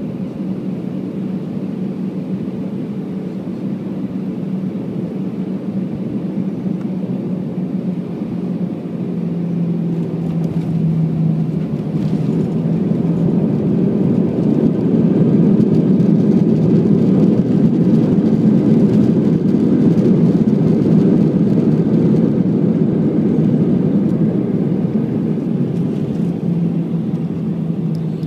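Airbus A319's CFM56 jet engines and airframe heard from inside the cabin during landing. A steady hum on short final, then after touchdown the engine noise swells for about ten seconds as reverse thrust is applied, and eases off as the jet slows on the runway.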